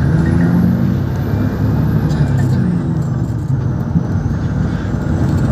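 Motor vehicle running on a road: a steady low rumble of engine and road noise, with a faint high whine that rises and then falls away about two seconds in.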